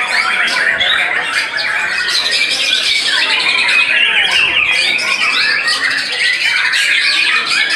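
A dense chorus of caged white-rumped shamas (murai batu) singing against each other in competition, with many quick whistles and trills overlapping without a break.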